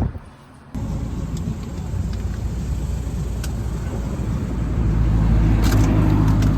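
A motor vehicle running, with a steady low engine and road rumble that grows louder and steadier about two-thirds of the way through.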